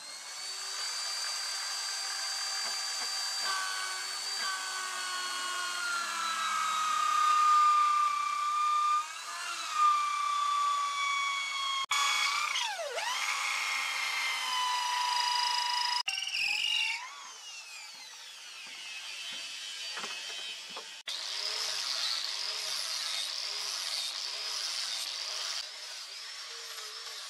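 Electric power tools in turn, each a high motor whine: a small lathe turning a wooden machete handle, its pitch sliding slowly down; then a drill boring into the end of the wooden handle, its pitch dipping sharply and recovering as it bites; then an angle grinder with a sanding disc working over the steel machete blade, with a steady pulse under its whine.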